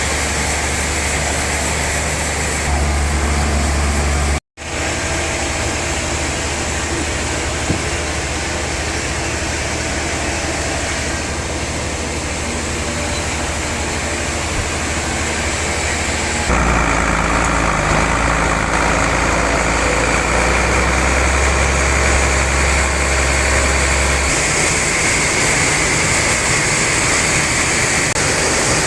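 Large log sawmill machinery running steadily with a low hum. The sound cuts out for an instant about four seconds in, and its tone shifts abruptly twice later on.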